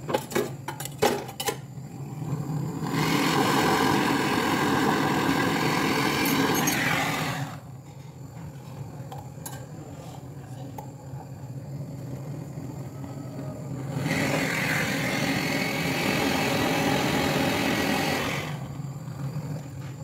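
A few sharp metal clinks as locking pliers are handled, then two long rushing noises of several seconds each, over a steady low hum.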